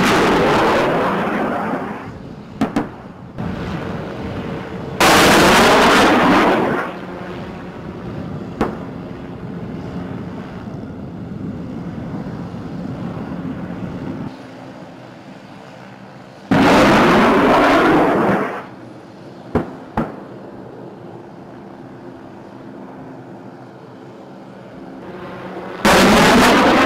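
2.75-inch rockets launching from an MD 530F Cayuse Warrior helicopter: four loud rushing roars, each starting abruptly and lasting about two seconds, with a few single sharp bangs between them. The helicopter's engine and rotor hum steadily underneath.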